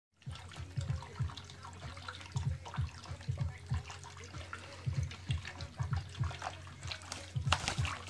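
Water splashing and sloshing in a plastic basin as a hand stirs it, in many short splashes; near the end a burrowing parrot flaps into the water, giving the loudest burst of splashing.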